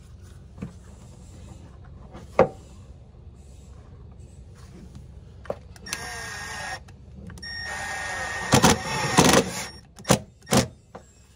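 Cordless drill driving a self-tapping screw through a plastic mud flap into a sheet-metal tab. A short burst of motor whine comes about six seconds in, then a longer run from about seven and a half seconds to nearly ten, with sharp knocks near its end as the screw seats. A single knock comes about two seconds in and a couple of sharp clicks near the end.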